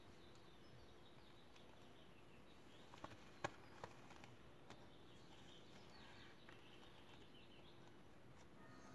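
Near silence: faint room tone, with a few soft handling clicks about three to four seconds in as a disposable face mask and its beaded strap are fitted.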